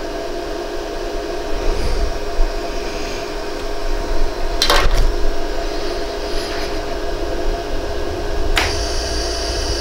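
Steady hum of a LaserStar jewelry laser welder, broken by two sharp clicks, one about halfway through and one near the end: laser pulses striking a marker-darkened spot on a hollow gold earring to flow the metal back into place. After the second click a higher hiss joins the hum.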